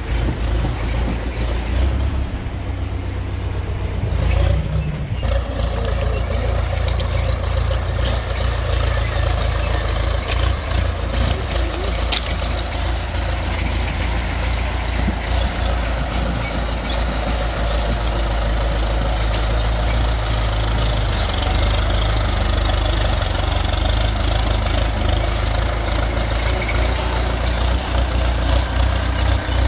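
Heavy diesel engine of road-works machinery running steadily with a deep, low rumble.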